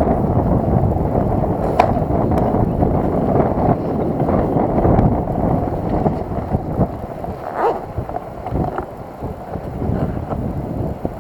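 Wind buffeting the camera's microphone, a loud uneven rumble, with a few sharp clicks and knocks from handling a zippered bag and a hard plastic case.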